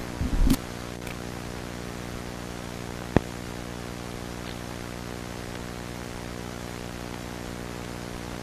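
Steady electrical hum with an even hiss, like tape or line static, with a brief louder sound in the first half-second and a single sharp click about three seconds in.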